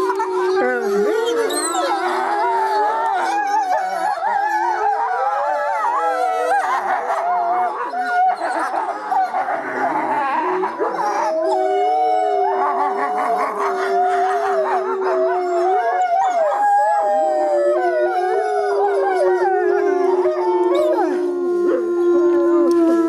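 Gray wolf pack howling in chorus: several long, overlapping howls rising and falling in pitch, with a denser, rougher stretch of many voices in the middle.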